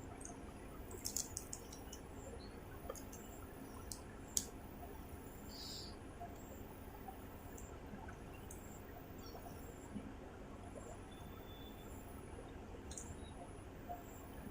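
Quiet room tone with a few faint clicks and ticks, a small cluster about a second in and a sharper single click about four seconds in, from a person drinking water from a plastic bottle. No burp is heard.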